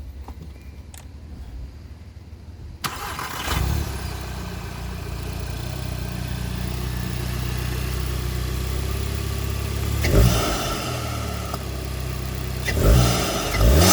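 VW MK7 GTI's turbocharged 2.0-litre four-cylinder starting up about three seconds in on its first start after a new turbo inlet elbow was fitted. It flares briefly, then idles steadily, with three short throttle blips in the last few seconds.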